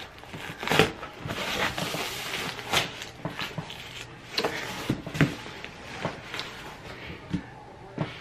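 Corrugated cardboard of a large shipping box being torn open and pulled by hand: irregular rips and scrapes with knocks against the box.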